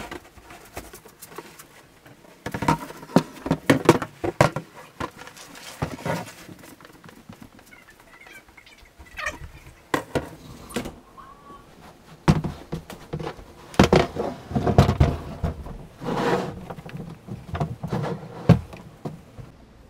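Irregular knocks, scrapes and crackles from hands handling a plastic whitewater kayak's hull and cockpit rim, coming in clusters with short lulls between.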